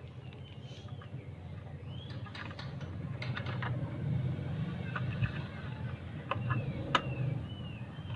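Steady low outdoor background rumble with a few short high chirps and scattered sharp clicks of a cardboard toothpaste box being handled, the loudest click about seven seconds in.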